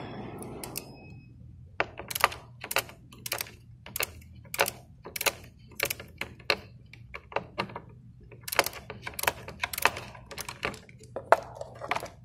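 Ratcheting wrench clicking in short runs, about three clicks a second, as it loosens the nut on a car battery's negative terminal clamp to disconnect the battery.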